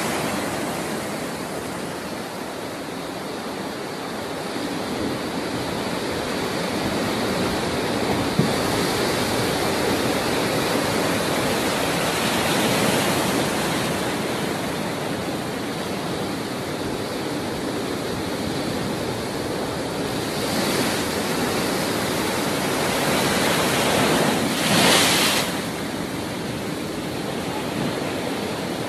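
Rough, storm-driven sea surf breaking and washing ashore without pause, with wind buffeting the microphone. It swells now and then, with the loudest surge near the end.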